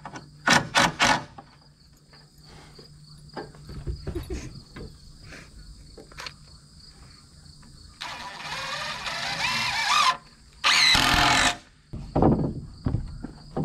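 A cordless power tool run in short trigger bursts: three quick bursts at the start, a longer run later, then two more bursts, with some small knocks between them.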